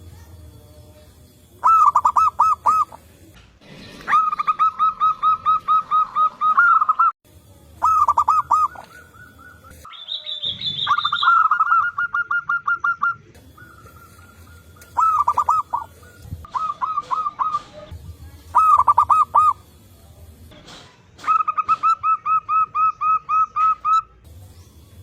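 Zebra doves (perkutut) cooing: repeated bouts of rapid, pulsing coo notes, each bout lasting one to three seconds, some overlapping as more than one bird calls. A short, higher-pitched call comes in about ten seconds in.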